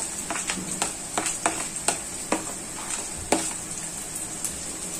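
Chopped vegetables sizzling in hot oil in a steel wok over a full gas flame, with a steady frying hiss. Short clicks and scrapes of a plastic spoon come throughout as diced carrot is pushed off a plate into the pan.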